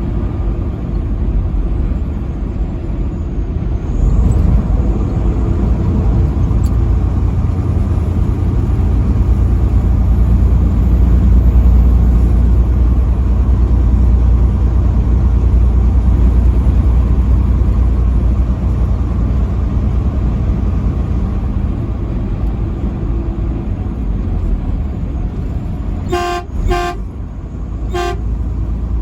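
Steady low rumble of a vehicle driving on the highway, then three short blasts of a truck horn near the end, the first two close together and the third a little over a second later.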